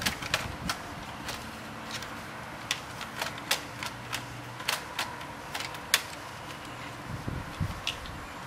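Scattered sharp clicks and taps, irregular and a few each second, as a laptop hard drive is fitted into the drive bay of an Asus G1S laptop's plastic underside with a screwdriver at hand.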